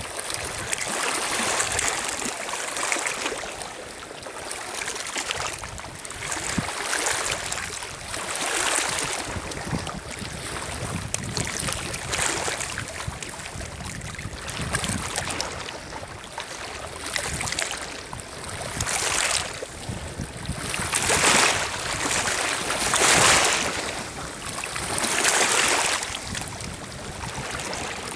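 Small lake waves lapping and washing over a pebbly shore, swelling and ebbing every couple of seconds, with the strongest washes near the end.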